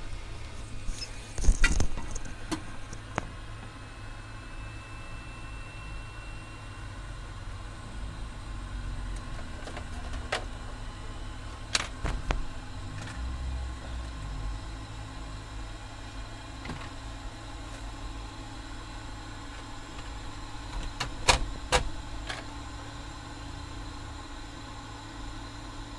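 A steady low hum with a few scattered sharp clicks and taps from tools and parts being handled during electronics repair work. The loudest taps come near the start, with a close pair late on.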